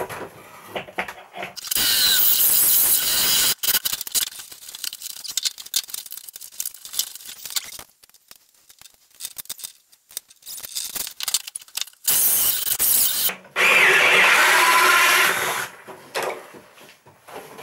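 A cordless power tool run in short loud bursts, working through the camper van's wall panel: once about two seconds in, then twice back to back near the end, the last burst with a squeal. Quieter scraping and clicks in between.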